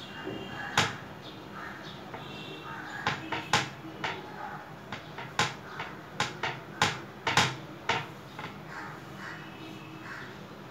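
About a dozen sharp clicks and knocks at irregular intervals, bunched in the middle, over birds calling in the background.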